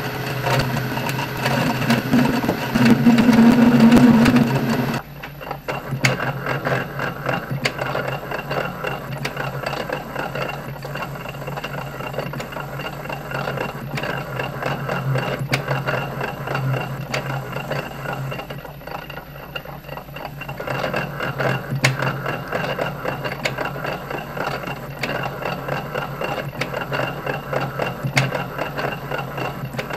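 Metal lathe running under cut, turning a 1144 steel bar and breaking the chips into short pieces, with dense fine clicking over a steady mechanical drone. The lathe's geartrain is audibly worn, having been damaged during this job. A louder hum in the first five seconds stops abruptly.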